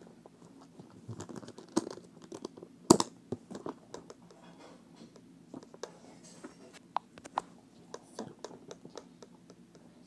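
A lidded box with a metal hasp latch being handled and opened: a scatter of sharp clicks, knocks and scratching, with the loudest knock about three seconds in.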